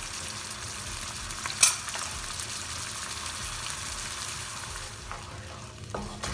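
Tomato sauce and ginger-garlic paste sizzling in hot oil in a pan as it is stirred, with one sharp knock about a second and a half in.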